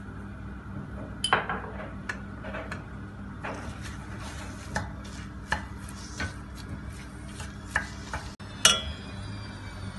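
A wooden spoon scraping and knocking in a stainless steel pan as raw minced beef is broken up and stirred, with a few sharp clacks, the loudest about a second in and near the end, over a steady low hum.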